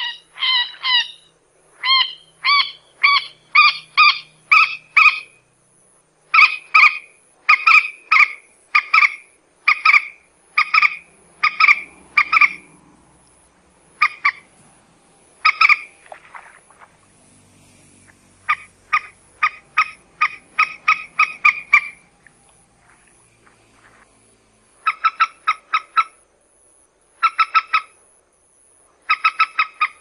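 Common moorhen calling: short, sharp clucking notes repeated about two to three a second in several bouts, with brief pauses between them.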